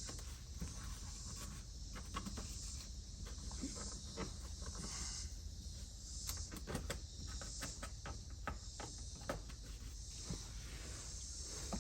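Faint scattered clicks and rustles of a dashcam power cable being tucked up under a car's headliner with a small trim tool, over a steady high hiss and low hum.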